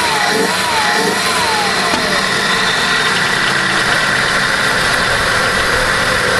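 Buick 3800 Series I 3.8 V6 with a new cold air intake, revved in quick blips so its pitch swings up and down, then falling back steadily toward idle.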